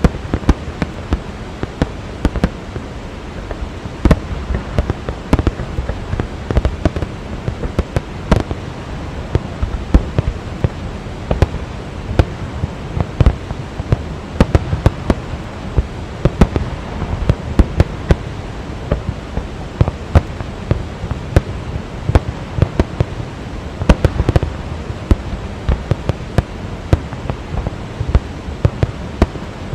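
Fireworks display: a continuous barrage of explosive bangs and crackles, several a second, over a steady rushing noise.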